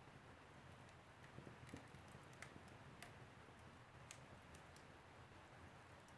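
Wood fire crackling faintly, with scattered sharp pops and ticks at irregular moments over a soft, steady rush of burning.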